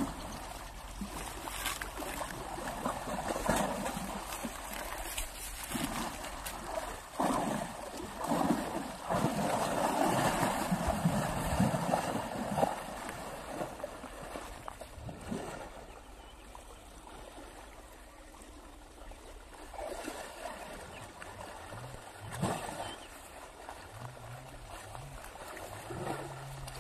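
Water sloshing and splashing as two elephants play and swim in a pond, with irregular splashes. The water is busiest around the middle and quieter toward the end.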